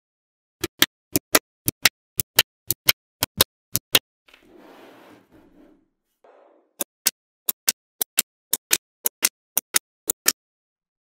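Small magnetic balls snapping onto a magnet-ball build, sharp clicks coming in quick pairs. There are two runs of about seven pairs each, with a soft rustle in the pause between them.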